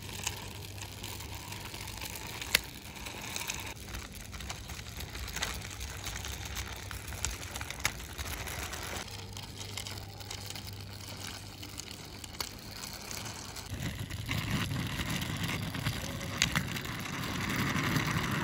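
Plastic toy autorickshaw's small plastic wheels rolling on rough, mossy concrete as it is pushed by hand: a gritty rolling rumble with scattered sharp clicks, louder from about three-quarters of the way through.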